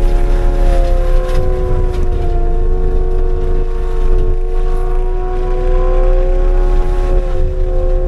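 Skid steer's diesel engine and forestry mulcher running under power, heard from inside the cab. It is a steady heavy drone with a low rumble and a few held tones that sag and recover slightly as the load changes.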